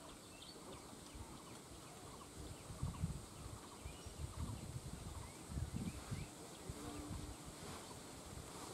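Young ducks peeping, a scatter of short rising chirps that keeps up throughout. A few louder low rumbles come through near the middle.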